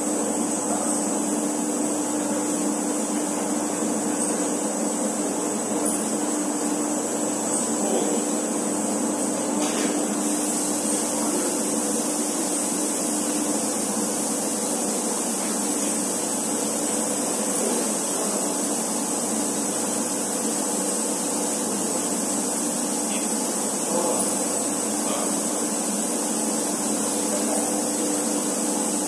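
Steady hum and whir of a rotary-arm stretch-wrapping machine running as it wraps film around a filled big bag on a pallet, with a held whine that stops about halfway through.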